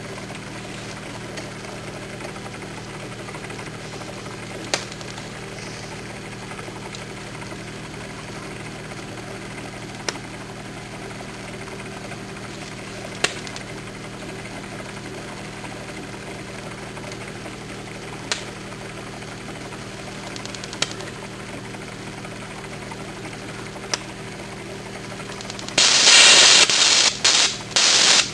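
Steady low hum with a faint hiss under a lit HHO (oxyhydrogen) needle torch, broken by a few sharp single clicks. Near the end, as the torch tip is put to the metal block, loud choppy bursts of crackling, popping noise cut in and out.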